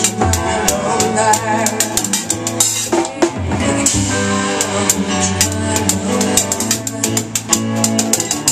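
Acoustic drum kit played live along with a recorded rock song: kick, snare and cymbals keeping a steady beat over the track's bass and other instruments.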